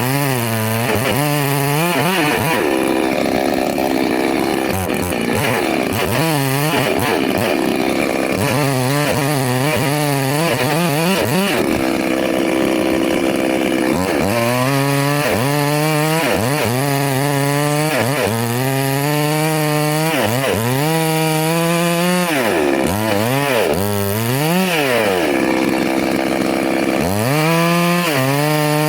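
Petrol chainsaw running hard, its engine pitch repeatedly dipping and rising again as the chain works through wood.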